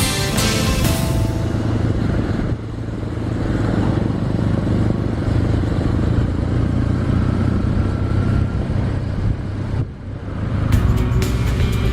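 Motorcycle engine running steadily while riding. Background music fades out at the start and comes back near the end.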